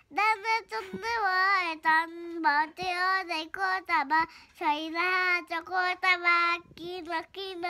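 A young child singing a Nepali song alone in a high voice, with some notes held long and wavering in pitch.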